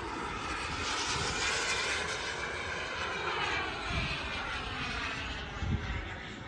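Radio-controlled jet fighter model flying past, a steady rushing whine that swells in the first half and eases off toward the end.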